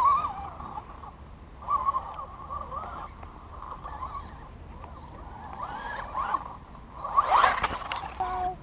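Electric RC rock racer's motor whining in spurts, its pitch rising and falling with the throttle, with a louder burst near the end as the car comes close.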